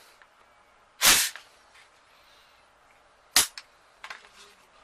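Smith & Wesson M&P15 Sport II AR-15 rifle's action being worked by hand: two sharp metallic clacks, one about a second in and a shorter one past three seconds, then a few light clicks near the end.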